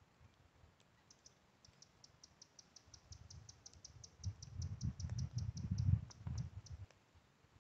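A wild creature's high chirping call, short notes repeated about five times a second for several seconds, then stopping shortly before the end. Under it an irregular low rumble swells in the middle and is the loudest sound.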